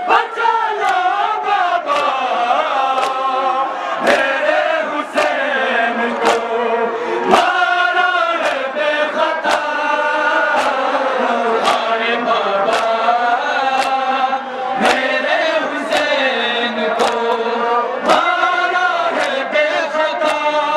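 Men chanting a noha, a Muharram lament, together in a steady chant, with a regular beat of sharp slaps from chest-beating (matam) behind it.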